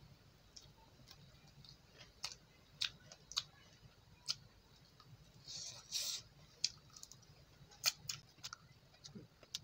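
Close-up mouth sounds of a person chewing food: irregular wet clicks and lip smacks, with a longer noisy chew about six seconds in.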